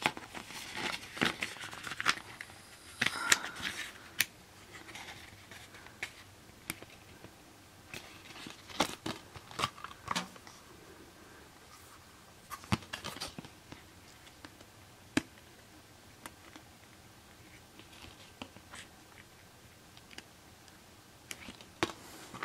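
Handling of a clear plastic Blu-ray case while its paper cover insert is flipped to the reverse art: the paper sleeve rustles and scrapes as it slides out and back into the case, with scattered sharp clicks and taps from the plastic case.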